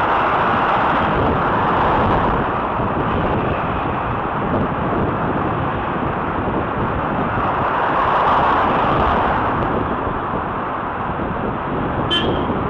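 Wind rushing steadily over the microphone of a cyclist's camera while riding in road traffic, mixed with the noise of cars. A short sharp click near the end.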